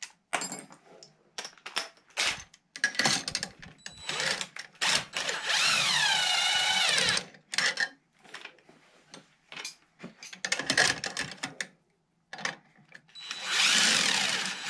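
Cordless drill spinning a nut down a threaded radius rod onto its spacer, in two runs of about two seconds each, the motor's pitch falling as it loads up; clinks and knocks of tools and parts being handled between the runs.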